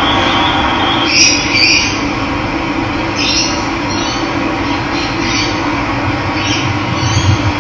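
Steady rushing of running water, with short bird calls over it every second or so.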